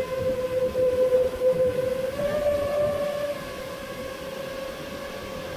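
5-inch FPV quadcopter's motors and propellers whining in flight, a steady buzzing tone that rises slightly in pitch about two seconds in and gets a little quieter a second later. Wind rumbles on the drone's camera microphone underneath.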